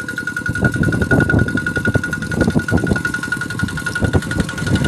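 Engine of a two-wheel walking tractor with cage wheels running under load while pulling through flooded paddy mud: a rapid, even firing beat with a steady high whine over it, swelling and easing in loudness.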